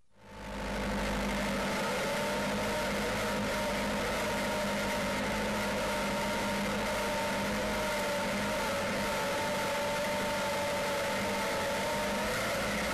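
Small farm tractor's engine running steadily under way, with the PTO turning a rear-mounted broadcast spreader; a steady hum with a constant whine over it. The sound rises out of silence within the first second.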